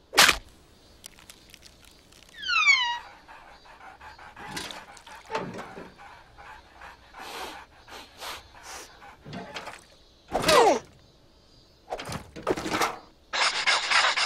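Cartoon soundtrack of sound effects and wordless character voices. There is a sharp hit just after the start and a quick falling whistle about two and a half seconds in. Scattered short squeaks and grunts from the larva characters follow, with a louder cry about ten and a half seconds in.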